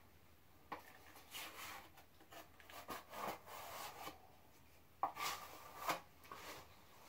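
A drywall knife scraping joint compound, in a series of short, irregular scrapes with the sharpest about five seconds in.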